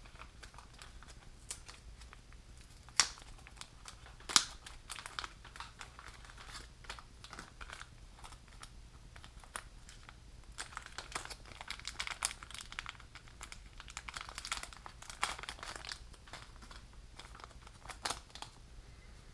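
Clear plastic parts bag and packaging crinkling and rustling as they are handled and opened, with scattered small crackles and clicks. There are two sharper snaps about three and four and a half seconds in, and denser crinkling later on.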